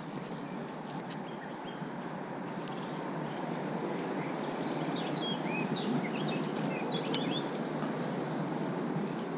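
Steady rushing background noise, with a small bird chirping a quick run of short notes about halfway through.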